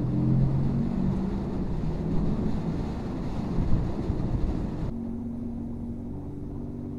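Kawasaki Z650's parallel-twin engine running under way with wind rushing past the microphone as the motorcycle speeds up. About five seconds in the wind noise drops sharply and the engine settles to a steady lower note as the bike slows.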